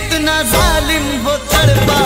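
Ghazal music playing: a melodic line of bending, ornamented notes over a steady accompaniment.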